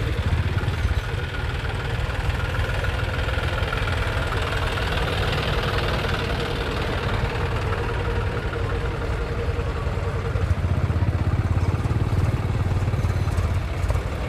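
Diesel farm tractor engines running steadily as a procession of tractors drives past, growing a little louder near the end as the next tractor draws close.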